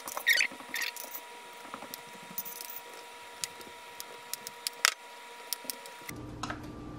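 Quiet kitchen handling sounds as a glazed loaf pan is moved with oven mitts and set back into an electric oven: a few short scrapes in the first second, then scattered light clicks and taps. A faint steady hum runs underneath and stops about six seconds in.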